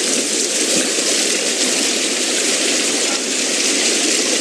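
Rushing water of a swollen, flooded river pouring fast over boulders: a loud, steady hiss with no let-up.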